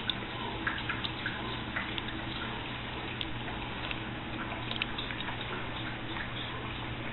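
A dog lapping water from a plastic bowl: irregular small splashes and drips, several a second, over a steady low hum.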